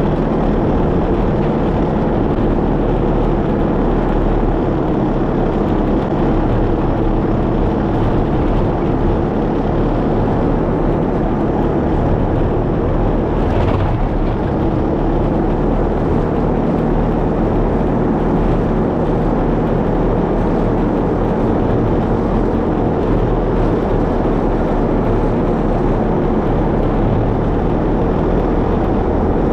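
A vehicle being driven: steady engine and road noise with no break or change.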